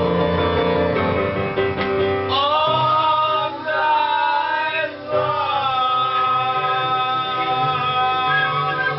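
Music: voices holding long sung notes, sliding in pitch now and then, over a backing track.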